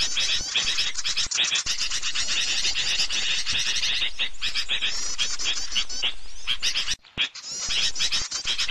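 Dense, rapid chirping and twittering of many small birds, a bird-trapping lure call (pikat burcil) made to draw small birds in. The notes come in quick, high repeated bursts, with a brief break about seven seconds in.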